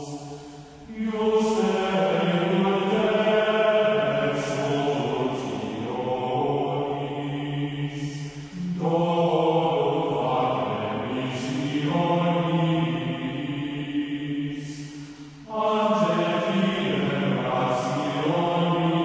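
Gregorian chant sung by a choir, in three long phrases separated by short breaks.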